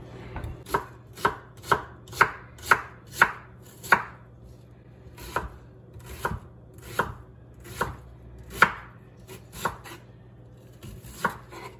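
Chef's knife chopping half an onion on a wooden cutting board: sharp knocks of the blade meeting the board, about two a second, with a short pause about four seconds in before the cutting resumes less evenly.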